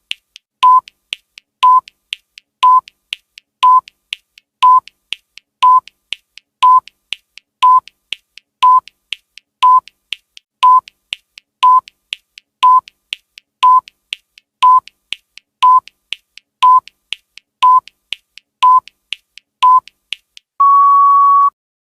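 Countdown timer sound effect: a short electronic beep once a second, with a fainter click between beeps. Near the end, one longer, slightly higher-pitched beep of about a second marks the end of the countdown.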